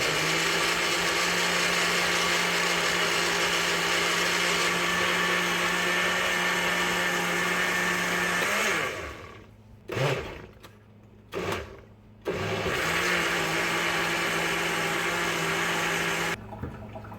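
Countertop blender running, puréeing boiled pumpkin, carrot and ginger: a steady motor whir for about eight seconds that winds down and stops, two short pulses, then another run of about four seconds that cuts off near the end.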